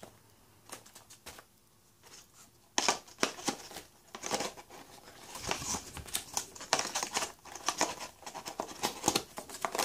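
Cardboard phone box and its inserts handled by hand: a few light taps, then from about three seconds in a busy run of rustling, scraping and clicking as pieces of card are lifted out and set back in the box.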